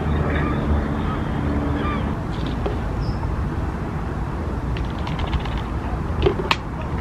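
Steady low outdoor rumble with faint waterfowl calls, then a few sharp clicks and knocks near the end as bait is handled at the bucket while a spomb is loaded.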